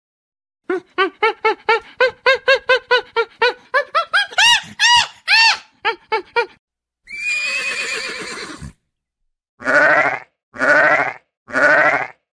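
Farm animals calling: a quick run of short, rising-and-falling calls lasting about six seconds, then one breathy, hissing call, then four evenly spaced, wavering sheep bleats near the end.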